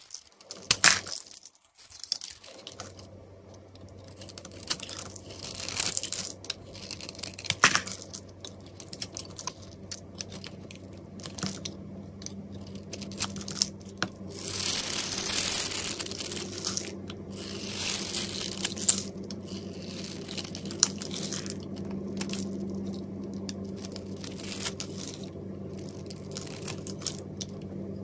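A knife blade scraping and cutting into bars of dry soap, a run of short, crisp, crumbly strokes as flakes and small cubes break away. A steady low hum runs beneath from about two seconds in.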